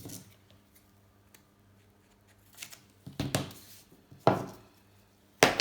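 Adhesive tape being pulled off the roll in three short noisy rips, about three, four and five seconds in, as it is wrapped round a steel bicycle frame to protect it.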